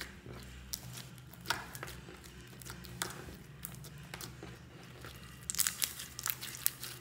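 Foam-bead slime (floam) crackling and popping as hands squeeze, pull and tear it, in scattered sharp crackles with a denser, louder run near the end. A faint low hum sits underneath.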